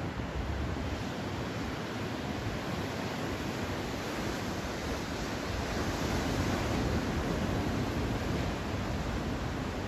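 Ocean surf rushing onto the beach as a steady wash of noise that swells louder about six seconds in. The waves are running somewhat high from a typhoon's swell.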